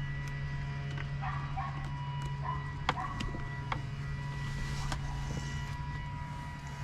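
A dog barking a few short times over a steady low hum, with a few sharp clicks.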